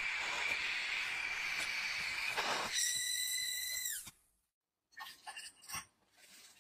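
Gas blowtorch hissing steadily, with a high whistling tone over the last second before it cuts off about four seconds in. A few faint clicks and light knocks follow.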